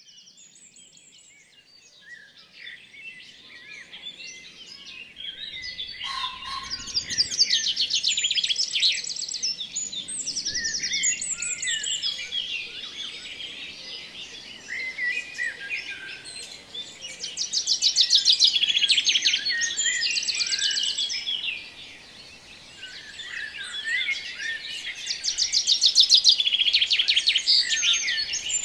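Chorus of several songbirds chirping and trilling over a soft outdoor hiss. It fades in over the first few seconds and then swells and eases in waves, with fast rattling trills standing out every several seconds.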